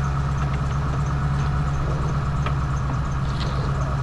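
A steady low mechanical hum at a constant pitch, like an engine or motor running at idle, with a few faint ticks over it.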